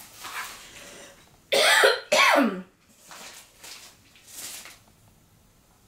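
A person coughing twice in quick succession, two short loud coughs about a second and a half in.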